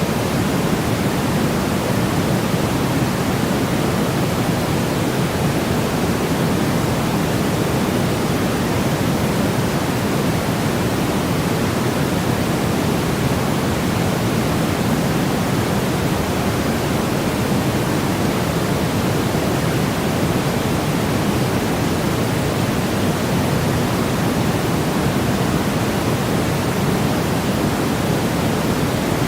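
Steady, unchanging noise: a constant hiss-like rush, fuller in the low and middle range than in the treble, with no rhythm or events.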